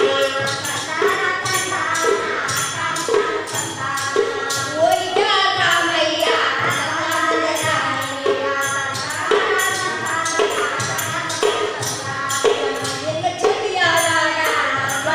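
Women's voices singing a Burrakatha folk ballad together in phrases. Under the voices, barrel drums beat a steady rhythm and a tambura is strummed.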